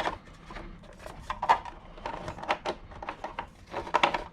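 Several light clicks and knocks of a 2019 Mac Pro's memory-bay cover being unlocked and lifted off, the loudest about a second and a half in.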